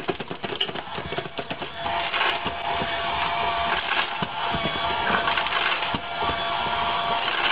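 An automatic pet feeder running: a steady mechanical whir that sets in about two seconds in, with rattling and clicking throughout.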